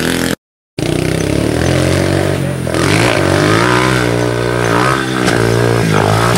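Honda CRF70 minibike's small four-stroke single-cylinder engine revving up and down as it is ridden over a dirt track. The sound cuts out completely for a moment about half a second in.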